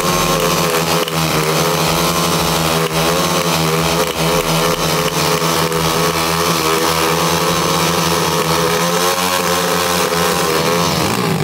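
Two 190cc SYX single-cylinder four-stroke pit bike engines held at high revs in a double burnout, their rear tyres spinning against the asphalt. The revs waver with the throttle and drop near the end.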